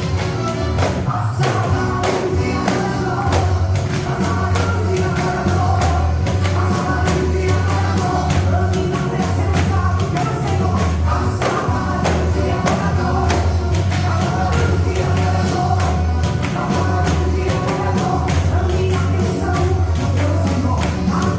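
Pandeiro jingles and drum strokes played in a steady rhythm over gospel music with heavy bass and singing.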